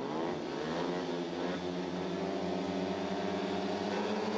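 Several speedway motorcycles' 500 cc single-cylinder methanol engines revving together at the starting tapes. Their pitch rises over the first second and is then held, the riders waiting for the tapes to go up.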